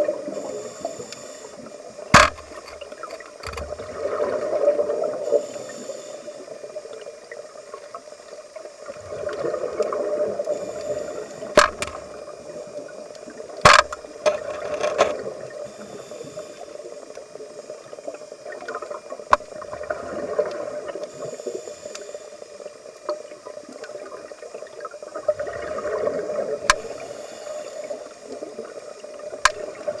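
Underwater sound of a scuba diver breathing through a regulator: exhaled bubbles gurgle in swells about every five or six seconds. A few sharp clicks come through, the loudest about two and fourteen seconds in.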